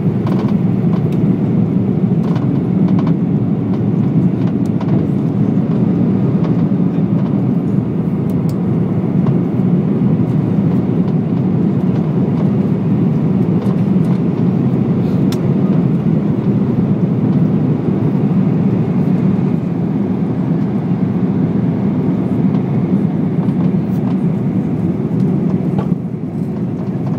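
Cabin noise of an Airbus A340-600 climbing after takeoff: the steady low roar of its four Rolls-Royce Trent 500 engines and the rushing airflow, heard from inside the cabin beside the wing. The noise dips slightly near the end.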